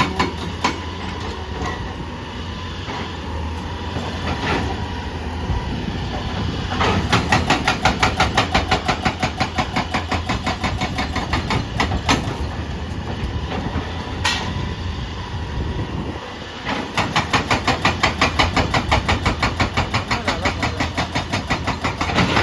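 Hydraulic rock breaker on an excavator hammering rock in two long spells of rapid, regular blows, over the low, steady running of the machine's diesel engine. Between the spells there are a few single knocks.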